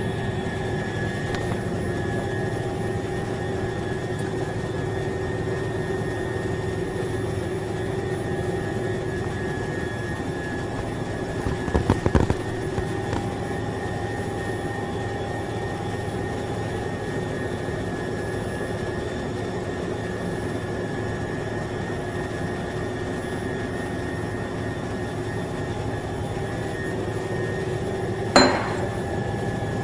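Steady machine hum made up of several constant whining tones, like a fan or blower running. A few knocks come about twelve seconds in and one sharp click near the end, while the glass bottle is being handled.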